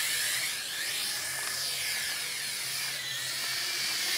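FPV quadcopter drone flying low and fast. Its motors and propellers make a high-pitched whine that keeps rising and falling in pitch as the throttle changes.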